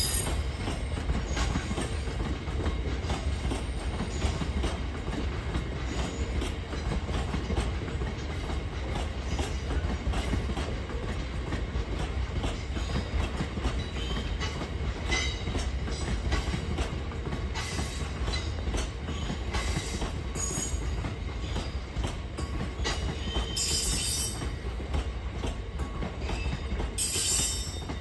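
Freight wagons of a GB Railfreight train rolling past with a steady low rumble and a stream of wheel clicks. Short high-pitched wheel squeals come several times, the loudest near the end.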